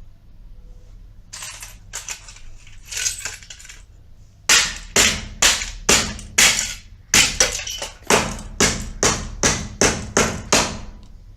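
Hammer striking and smashing a battery-powered quartz clock: a few separate blows in the first three seconds, then a fast run of about sixteen sharp blows, two to three a second.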